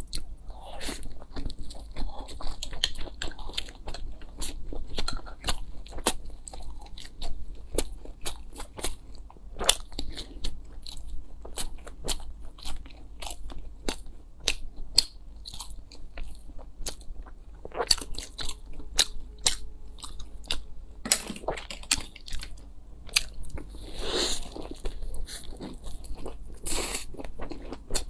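Close-miked eating: irregular crunchy bites and chewing throughout, a mukbang's real-sound eating of fried and spicy food.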